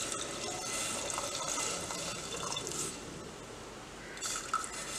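Water poured from a plastic bottle into an aluminium pressure cooker of soaked chickpeas: a steady splashing pour that eases off about three seconds in.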